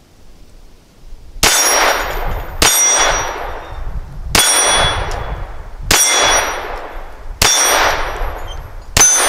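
Ruger LCP II .22 LR pistol fired six times, about one shot every second and a half, each shot followed by the ring of the steel target plate being hit. The pistol cycles through these rounds without a misfire.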